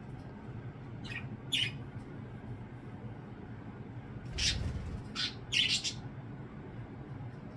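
Pet budgies giving several short, sharp squawking chirps, one longer call a little past the middle, with a low thud at the same moment.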